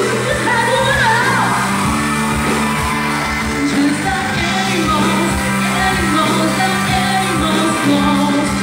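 A woman singing a pop-rock song into a microphone over a live band of electric guitar, bass guitar and drums, all amplified, with a steady drum beat.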